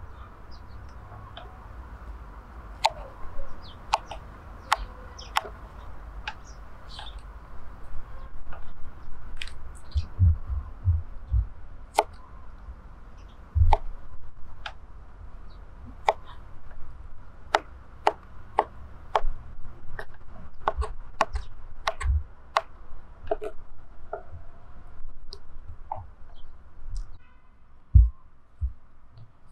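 A kitchen knife cutting fresh white mushrooms on a wooden cutting board: irregular sharp taps and clicks of the blade, with a few duller thuds on the board.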